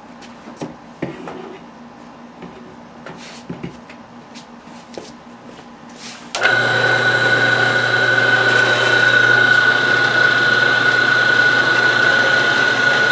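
A 4x6 horizontal metal-cutting bandsaw is switched on about six seconds in after some light clicks and handling. Its motor and blade then run steadily with a high, even whine over a low hum.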